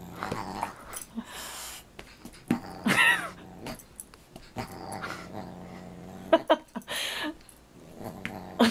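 Dog growling during rough play-fighting with a cat, with several short, sharp calls breaking in over the low rumble.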